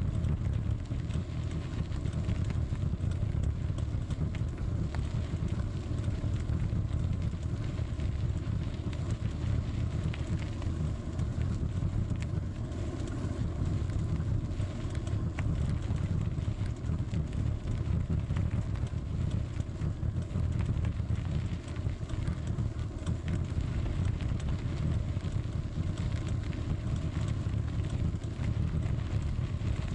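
Bicycle riding along a gravel path, heard from a bike-mounted camera: a steady low rumble of wind and tyre vibration, with scattered small ticks and rattles.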